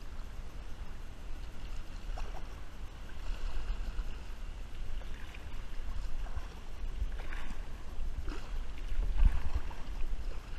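Kayak paddle strokes splashing in the water alongside an inflatable kayak, irregular, every second or two, over a steady low rumble.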